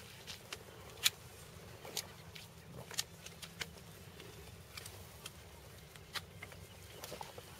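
Hand pruning shears snipping Albarino grapevine canes and tendrils: a series of sharp, irregular clicks, the loudest about a second in, over a faint outdoor hush.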